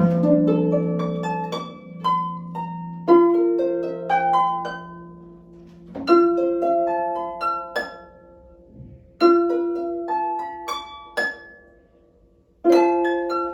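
Harp playing a classical piece: phrases of plucked notes that ring and fade, a new phrase starting every three seconds or so, with a brief hush before the last one.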